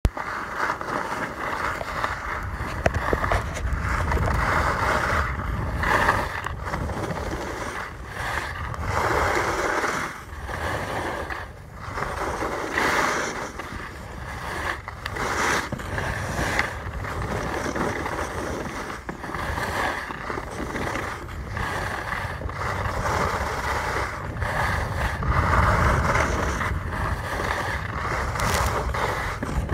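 Skis scraping over packed snow through a run of carving turns, the hiss swelling and fading every couple of seconds, with wind rumbling on the microphone throughout.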